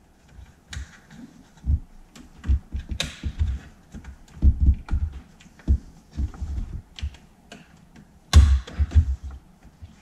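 Plastic air-conditioning control unit being pressed at its spring clips and worked out of a Porsche 997's centre console by hand: an irregular run of clicks, knocks and dull thumps, with plastic scraping. The loudest knock comes about eight seconds in.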